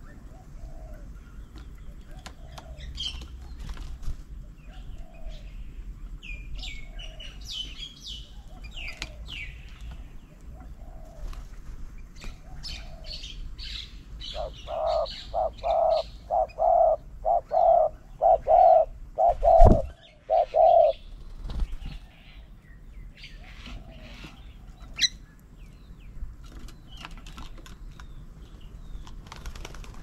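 Birds at a bird table: high chirps and calls from the feeding birds over a soft call repeated about once a second. About halfway through, a loud call note is repeated a dozen or so times at about two a second, with a thump near its end.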